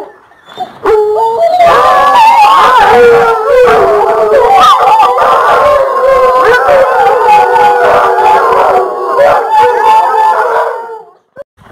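A pack of American hunting hounds baying and howling together in a dense, excited chorus as they are let out of the kennel for a hunt. The chorus starts about a second and a half in and cuts off near the end.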